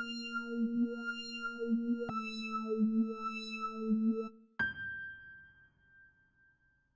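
Electronic drone tone that wobbles slowly and steps down in pitch twice. A little after halfway it breaks off into a sudden hit, which leaves a single high ringing tone fading away.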